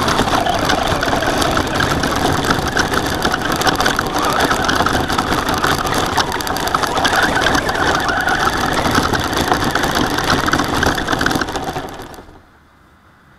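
Onboard sound of a Traxxas Slash RC truck driving over gravel: tyres crunching on loose stones along with drivetrain noise, cutting off suddenly about twelve seconds in as the truck stops.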